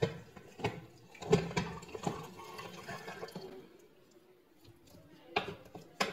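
Hand-cranked food mill working through cooked potatoes and carrots: its blade scrapes and squelches the soft vegetables through the sieve, with irregular clicks. It is busier in the first few seconds, eases off, then has a short loud burst near the end.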